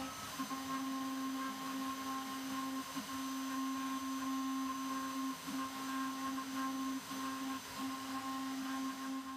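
CNC router spindle running with a steady whine as the bit engraves a shallow design into a curved plywood skateboard deck, the tone dipping briefly every second or so as the cut changes.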